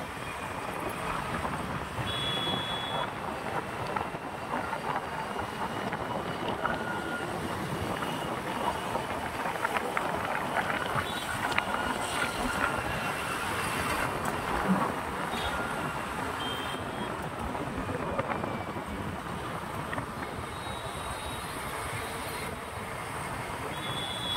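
Road traffic noise heard while travelling along a busy highway: a steady rush of engines and tyres, with short high tones, like horns, about two seconds in and again near the end.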